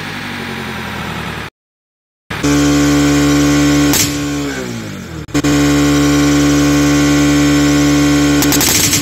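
Bajaj Pulsar RS 200's single-cylinder engine held at raised revs with a balloon over its exhaust, giving a steady pitched drone. Around four seconds in the revs sag and the pitch falls, then the drone comes back steady, with a short burst of hiss near the end.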